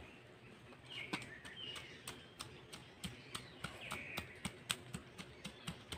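Faint, irregular knocks of a bamboo stick pounding chili peppers, about two a second. Faint bird chirps sound now and then.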